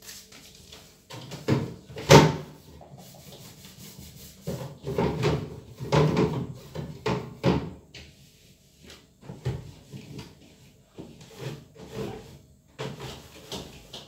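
A cloth wiping the plastic inside of a small refrigerator: irregular rubbing strokes and knocks against the liner and door, the sharpest knock about two seconds in.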